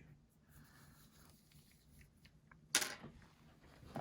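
Quiet work sounds of small repair tools on a phone: a few faint ticks over a low hum, then one short, sharp click or clack about three quarters of the way in.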